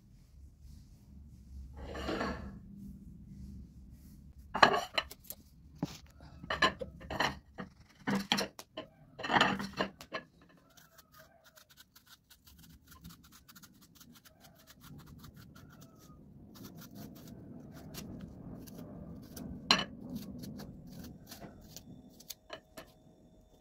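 Dishes and cutlery clinking and clattering, with a quick run of knocks in the first ten seconds, then quieter scraping and rubbing and one more clink later on.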